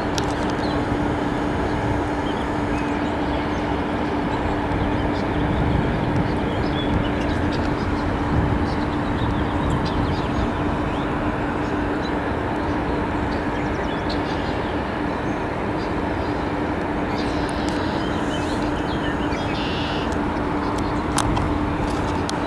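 A steady mechanical drone with one constant hum, over low rumbling noise, with a few faint clicks near the end.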